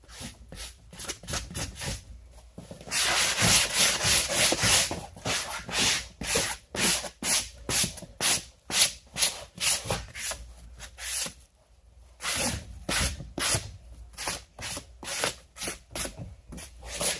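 Sanding block rubbed back and forth over chair upholstery fabric painted with dried clay-and-chalk mineral paint, smoothing the finish. It goes in quick repeated strokes, about two a second, with a longer stretch of continuous rubbing about three seconds in.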